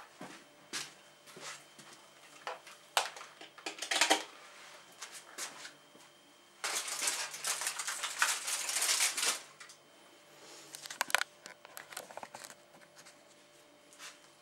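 Crumpled aluminium foil crinkling and rustling as it is handled, with scattered sharp clicks; a dense stretch of crinkling lasts about three seconds in the middle.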